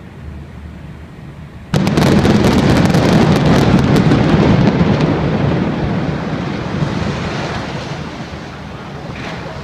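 Building implosion: about two seconds in, a sudden loud blast sets off a rapid crackle of sharp cracks over a heavy rumble as the brick hotel building collapses. The rumble then fades slowly over the next several seconds.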